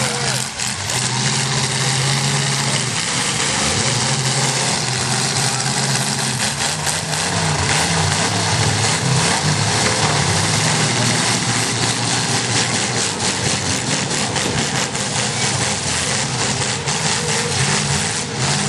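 Several demolition-derby car engines running together, mostly idling, their pitch wavering now and then as they are blipped.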